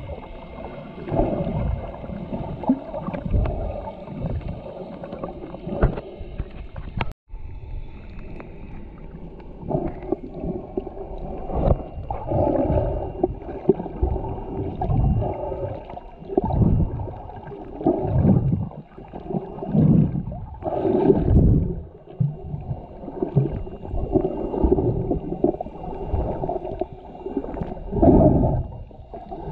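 Muffled water sound picked up by a camera held underwater: water swishing and gurgling around the housing in uneven swells every second or two. The sound drops out for a moment about seven seconds in.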